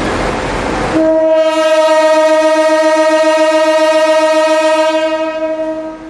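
A CC 201 diesel locomotive's horn gives one long, steady blast of about four and a half seconds, starting about a second in over a dense rumble and fading near the end.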